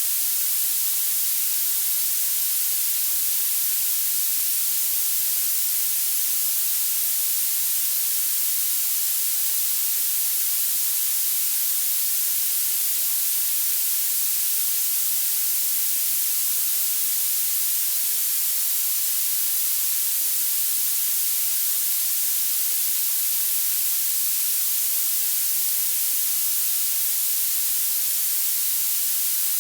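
Steady violet (purple) noise: an even, unbroken hiss weighted heavily toward the highest frequencies, with almost nothing in the low end.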